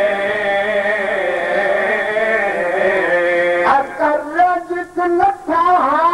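A man's voice chanting an elegy in a sung, drawn-out style through a microphone, holding long wavering notes. A little past halfway the line breaks into shorter gliding phrases with brief gaps between them.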